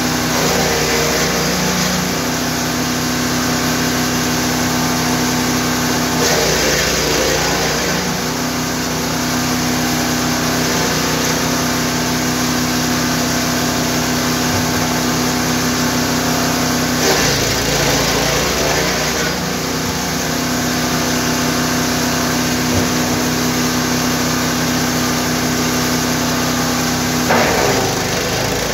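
The 9 hp engine of a GTM GTS 900 wood chipper running steadily. About six, seventeen and twenty-seven seconds in, its note shifts and a rougher, noisier spell rises over it for a second or two.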